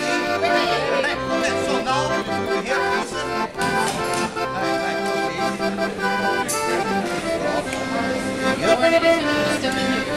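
Instrumental accordion music, with held chords under a moving melody.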